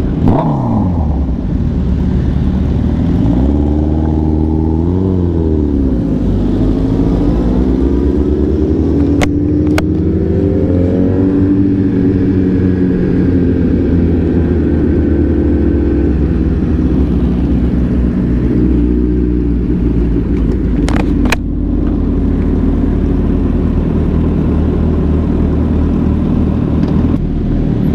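Sport motorcycle engine heard from the rider's seat: it revs up and back down about four to five seconds in, then climbs steadily in pitch as the bike accelerates and settles into a steady cruise with wind rush. A few sharp clicks about ten seconds in and again near twenty-one seconds.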